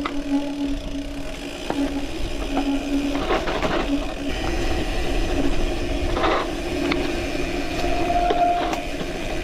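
Bicycle rolling along at speed, with a steady buzzing hum from the bike that breaks off now and then. Wind rumbles on the action-camera microphone, and there are a few short knocks as the bike goes over bumps.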